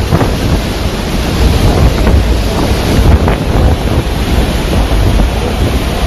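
Hurricane eyewall winds blasting the microphone: a loud, unbroken rush with heavy low buffeting that rises and falls in gusts.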